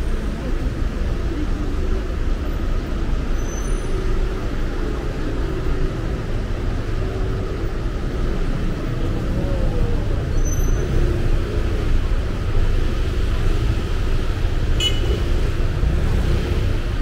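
Steady city street traffic: a low rumble of passing cars and buses, with a brief sharp high click near the end.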